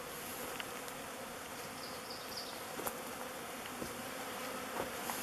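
Honeybee swarm buzzing steadily, with a few faint ticks: an agitated cluster of bees at a log hive that is trying to get in where another swarm has already moved in.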